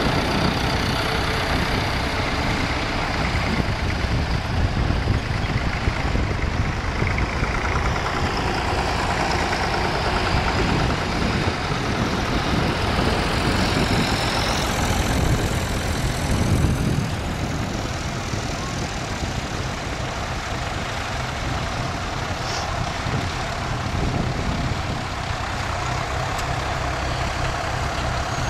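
Vintage tractor engines running as the tractors drive slowly across the field, with a Leyland 472 passing close by. The engine sound is louder for the first half and eases off a little after that.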